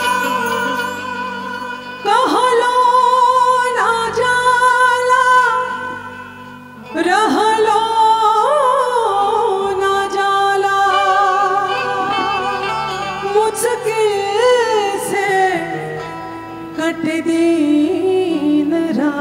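A woman singing a slow Bhojpuri song live into a microphone, holding long wavering notes over a musical backing, with a short breath-pause between phrases partway through.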